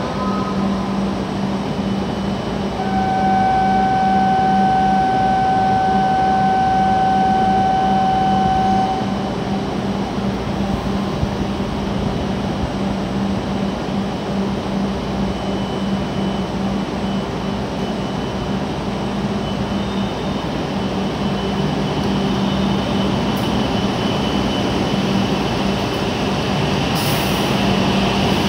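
A W7 series Shinkansen trainset standing at the platform, its equipment humming steadily. About three seconds in, a steady single-pitch tone sounds for about six seconds, then stops.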